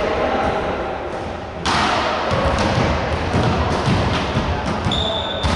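Thuds of a volleyball being served and hit on an indoor court, over a steady echoing hall noise that suddenly gets louder about a second and a half in. A brief high tone sounds near the end.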